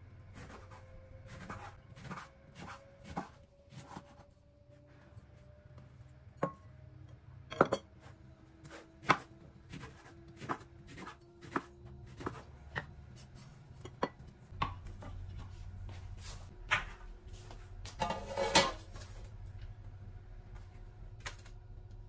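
A series of sharp, irregular knocks and taps of hard objects, roughly one every half second to a second, with a louder clatter about eighteen seconds in, over a faint low hum.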